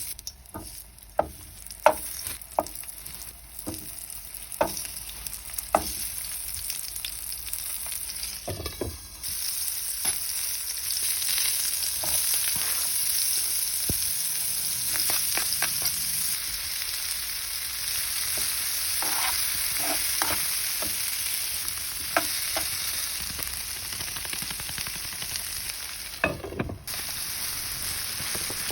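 Food sizzling as it fries in a pan, with a utensil stirring and knocking against the pan. Sharp knocks come every second or so at first; about nine seconds in the sizzle gets louder and steadier, with occasional clicks.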